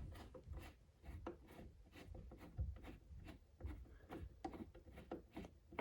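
Screwdriver working a slow, stubborn screw out of a radio's case: faint, irregular scraping and clicking, several small ticks a second.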